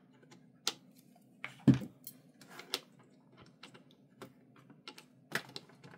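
Light clicks and taps of plastic watercolour half pans being handled and pressed into a metal paint tin, with one louder knock about a second and a half in.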